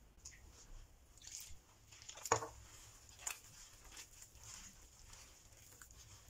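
Hands squeezing and working shaggy bread dough of flour and water in a glazed clay bowl: faint squishing and rustling, with a sharper click a little over two seconds in and another about a second later.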